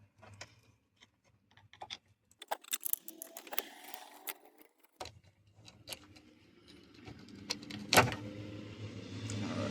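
Irregular clicks and rattles of a headlight switch and its plastic connector being worked loose by hand from a Jeep Cherokee XJ dash, with one sharper, louder click about eight seconds in. A low steady hum joins about halfway through.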